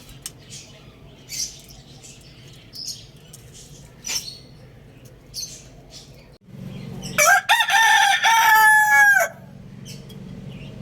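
A rooster crows once, a loud call of about two seconds starting about seven seconds in, holding its pitch and dropping off at the end. Before it come scattered short, high chirps.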